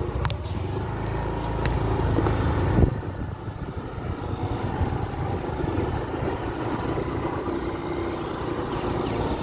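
Motorcycle engine running while riding, with a steady low hum. About three seconds in the deepest part of the hum drops away, leaving a rougher running noise.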